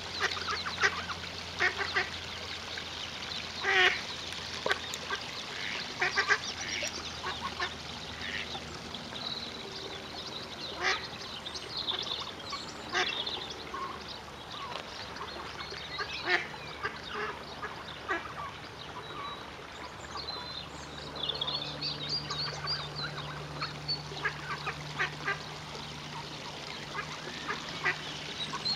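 Mallard ducks calling, ducklings and their mother: many short, sharp calls scattered throughout, over a faint low hum.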